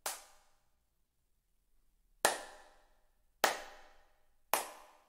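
One person clapping their hands, four single claps: one at the very start, then after a pause of about two seconds three more, each a little over a second apart, each followed by a short room echo.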